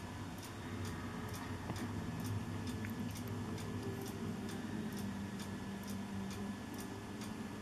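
Steady light ticking, about two ticks a second, over a low steady hum.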